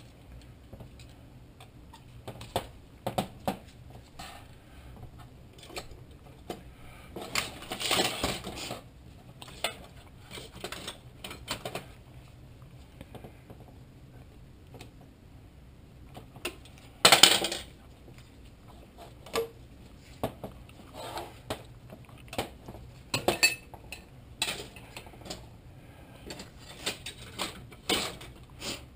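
Metal parts of a Volvo 850 automatic transmission's oil pump clinking and clattering against each other and the workbench as the pump is taken apart with a screwdriver. Scattered clicks and knocks, with a longer clatter about eight seconds in and the loudest, sharp clatter about seventeen seconds in.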